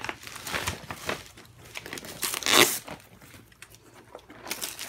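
Christmas wrapping paper crinkling and tearing as a present is unwrapped by hand, loudest about two and a half seconds in.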